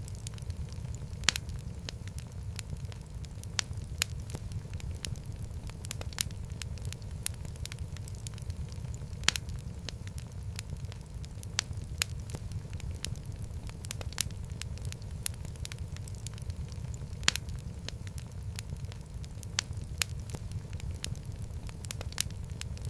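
Wood fire burning in a fireplace, with a steady low rumble of flame and frequent irregular sharp crackles and pops, a few of them noticeably louder.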